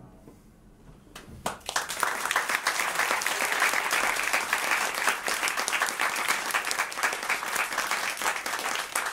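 The last piano chord dies away at the start; about a second later the audience breaks into applause that swells within half a second and keeps going.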